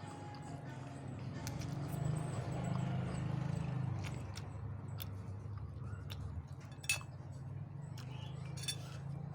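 Eating utensils clinking against dishware in several sharp, separate clicks during a noodle meal, over a low steady drone.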